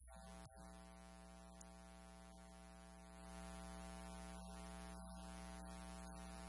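Faint, steady electrical hum or buzz with many overtones, getting slightly louder about three seconds in.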